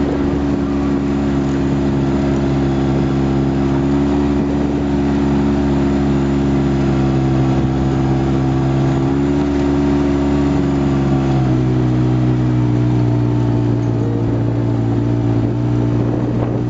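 Polaris RZR side-by-side's engine running steadily under load as it climbs a dirt track, a constant drone with the engine speed easing down slightly about eleven seconds in.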